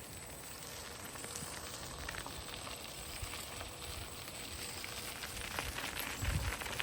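Light crackling and rustling with scattered faint ticks, and a dull low thump about six seconds in.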